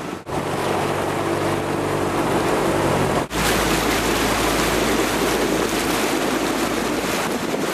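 Wind buffeting the microphone over rushing water, with the steady hum of a motorboat engine for about the first three seconds; after a sudden break the wind rumble carries on alone.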